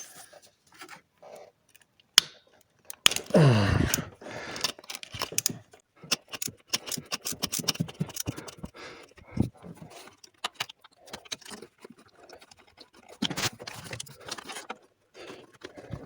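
Hand tools working on the retaining nuts and washers of a common-rail high-pressure fuel pump: scattered metal clicks, jangling and scraping, with louder scrapes about three seconds in and again near thirteen seconds.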